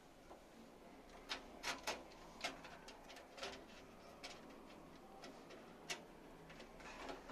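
Irregular light clicks and taps of computer parts and screws being handled during PC assembly, a cluster of sharper clicks in the second and third seconds.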